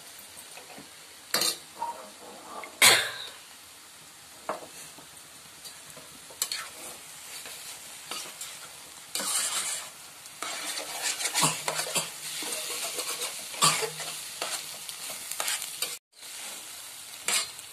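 Steel spoon stirring and scraping egg fry (scrambled eggs with onions) around a nonstick frying pan, over a steady sizzle of frying; the dish is just about cooked. A few sharp knocks come in the first three seconds, and the scraping gets busier from about nine seconds in.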